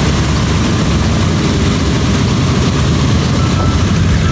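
A B-17 Flying Fortress's four Wright R-1820 Cyclone radial engines running at low power as the bomber taxis, a steady low rumble with propeller noise.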